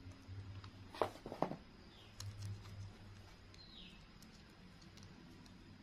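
Thin clear plastic petals crinkling as they are pinched and pressed together by hand, with two short sharp crackles about a second in and a few faint ticks after, over a faint low hum.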